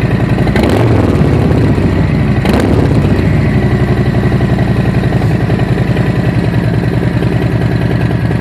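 Harley-Davidson Road King Special's Milwaukee-Eight 107 V-twin running loud through Cobra Neighbor Hater slip-on mufflers, idling with an even pulsing beat. It is blipped on the throttle briefly about half a second and two and a half seconds in.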